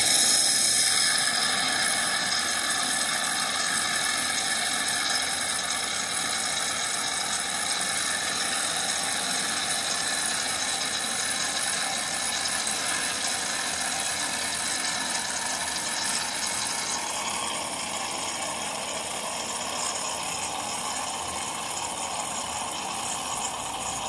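Cecotec Power Matic-ccino 7000 bean-to-cup coffee machine frothing milk for a cappuccino: the milk system runs with a steady loud hissing, whirring noise as foamed milk pours into the glass. The tone shifts slightly about seventeen seconds in.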